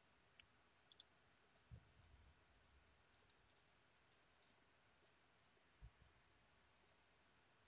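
Near silence: room tone with about a dozen faint, scattered clicks and two soft low thumps.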